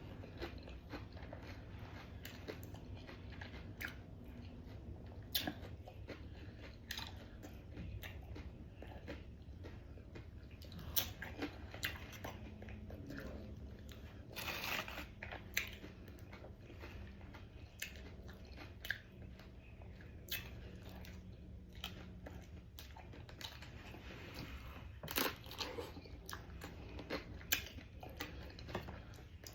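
A person eating close to the microphone: scattered crunchy bites and chewing, heard as irregular sharp crunches every second or two over a faint low hum.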